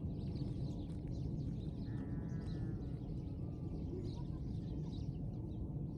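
Small birds chirping here and there over a steady low rumble, with one short call about two seconds in that has several harmonics, like a bleat.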